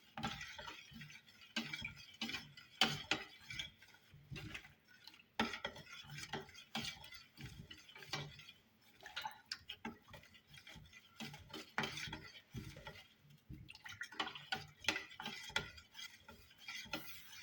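A spoon stirring lemon juice, grated ginger and water in a jar, with irregular clinks and scrapes against the sides, pausing briefly about two-thirds of the way through.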